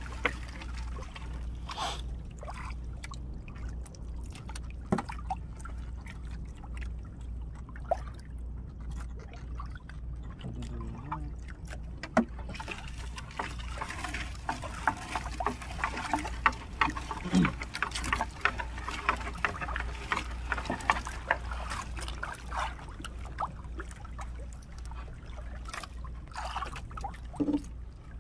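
A wet fishing net being hauled in by hand over the side of a small boat, with seawater trickling and splashing off the mesh back into the sea and small clicks and rustles of the net. A steady low hum runs underneath.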